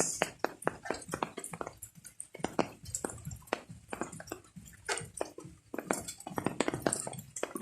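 Rain dripping and tapping on hard surfaces in a garden: many small, irregular clicks and taps, several a second.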